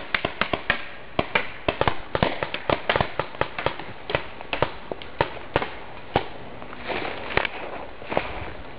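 Paintball markers firing: a rapid, irregular string of sharp pops, several a second, some louder and nearer than others.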